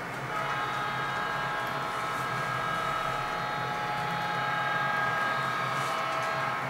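Model railroad train running on the layout, with a steady sound of several held tones over a low hum that stops near the end.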